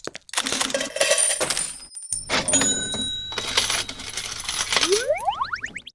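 Cartoon sound effect of coins clinking and jingling, with bright ringing tones. Near the end comes a quick rising whistle.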